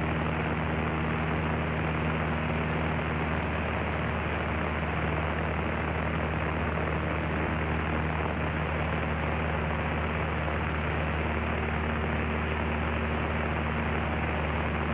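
Cessna 152's four-cylinder air-cooled Lycoming engine and propeller running steadily in cruise, heard from inside the small cabin as a constant low engine tone under an even rush of air and engine noise.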